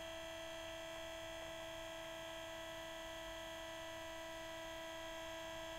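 Small electric pump of a Boyle's law apparatus running with a steady hum as it pushes fluid into the test chamber and compresses the trapped air.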